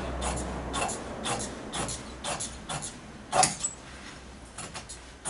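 Upholstery shears snipping through heavy upholstery fabric, a steady run of cuts about two a second, with one louder snip about three and a half seconds in.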